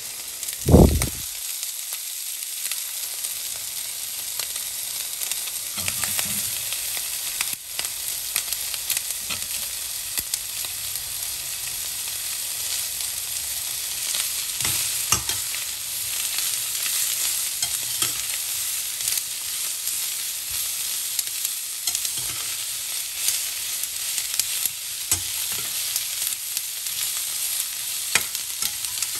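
Chicken and diced bell peppers sizzling steadily in a stainless steel skillet, stirred with a metal turner that scrapes and clicks against the pan. One loud, dull thump about a second in.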